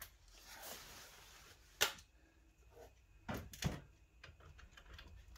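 Faint handling of tools on the car's front brake and hub assembly: a soft hiss near the start, then a sharp metallic click a little under two seconds in and two lighter knocks over a second later.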